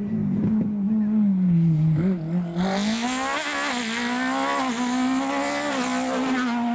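Proton Satria Neo S2000 rally car at full attack: the engine note falls as the driver comes off the throttle, then climbs and holds at high revs as the car powers through the corner. About two and a half seconds in, a loud hiss of tyres and flung gravel joins it as the car draws close.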